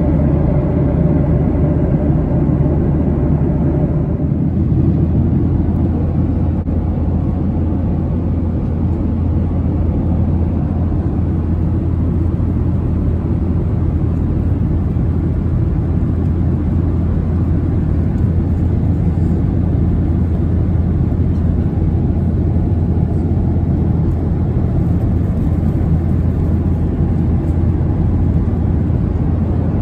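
Steady low cabin rumble aboard a Boeing 737-900 airliner. The tone shifts slightly about four seconds in.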